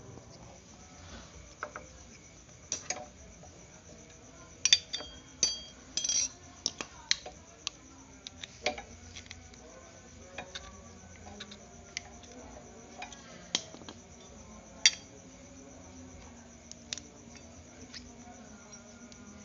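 Scattered metallic clicks and clinks from handling a Honda Scoopy's front disc-brake caliper as it is worked off the brake disc and lifted away. The clinks are irregular, and a few ring briefly about five seconds in.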